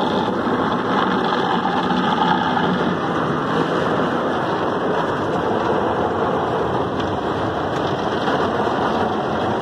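Automatic tunnel car wash spraying water over the car, a steady, even rushing and drumming heard from inside the cabin.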